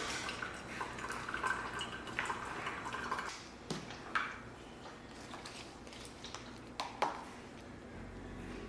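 Household water sounds: water trickling and dripping for the first few seconds, then a few light clinks and knocks.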